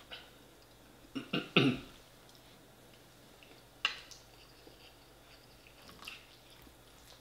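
A man clears his throat in two or three short rasps about a second and a half in. A few seconds later a metal fork clicks sharply once against a ceramic plate as he cuts food, with a few fainter scrapes after.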